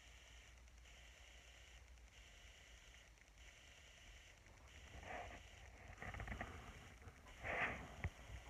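Near silence with faint room hiss. From about five seconds in come a few soft rustling handling noises, the loudest just before the end, with one small click as the phone is moved.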